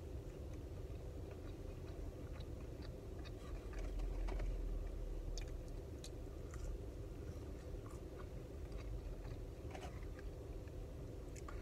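A person eating French fries close to the microphone: chewing and biting, with scattered small clicks and crackles over a steady low hum.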